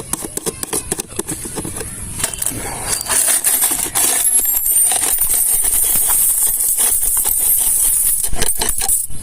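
Dense crinkling and clicking from a cat house and its packaging being handled during unboxing, growing louder and busier about three seconds in.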